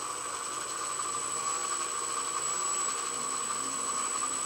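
Cordless drill running steadily with an even high whine, its bit drilling out a steel rivet on a rifle receiver's bottom plate. The rivet is tough going.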